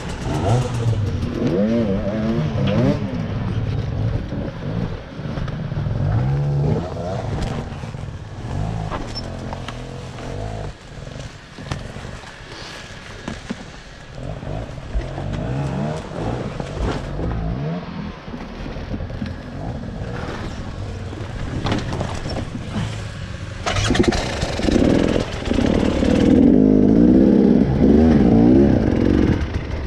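Off-road motorcycle engine running on a trail, its pitch rising and falling again and again as the throttle is opened and closed, loudest near the end.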